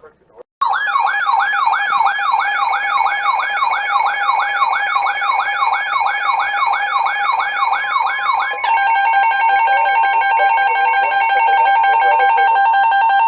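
Electronic alert siren: a tone sweeping up and down about two and a half times a second over a steady tone, switching about eight and a half seconds in to a steady, harsh two-tone alarm like the EAS attention signal.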